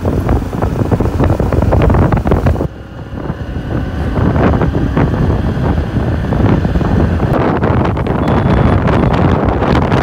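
Wind buffeting the microphone of a moving vehicle, over the rumble of the vehicle itself; the buffeting eases briefly a little over two and a half seconds in.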